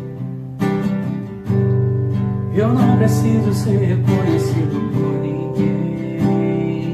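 Acoustic guitar strumming sustained chords, re-struck every second or so, as the instrumental opening of a worship song. A brief wavering melody line rises above it in the middle.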